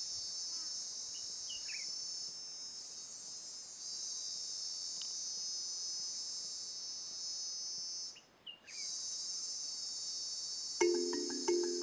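A dense, steady, high-pitched insect chorus, cutting out briefly about eight seconds in. Near the end, music with short repeated pitched notes comes in over it.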